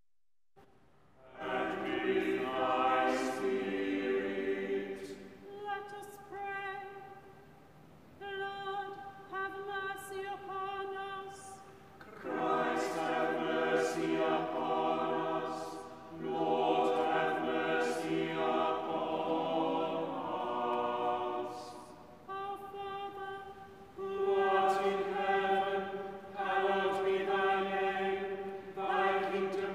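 Unaccompanied choir singing the sung responses of Choral Evensong. A single voice intones a line, and the choir answers in harmony, alternating through the passage.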